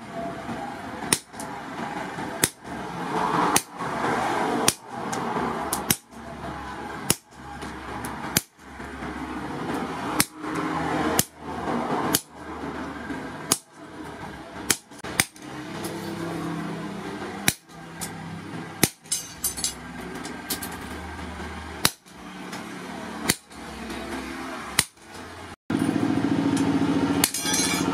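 Hammer blows driving a hot chisel through a red-hot steel motorcycle brake rotor disc on a steel anvil post, sharp metallic strikes about one every second and a quarter. Near the end the strikes stop and a steadier, louder noise takes over.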